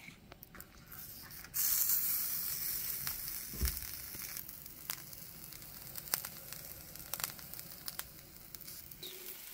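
Filled corn-masa gorditas sizzling on a hot stovetop griddle (comal): a steady frying hiss with scattered crackles that starts suddenly about a second and a half in and slowly fades.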